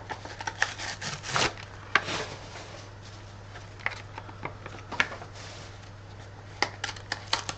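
Pokémon trading cards handled and slid against each other as a booster pack is gone through: soft rubbing and rustling with scattered light clicks, and a quick run of sharper taps near the end.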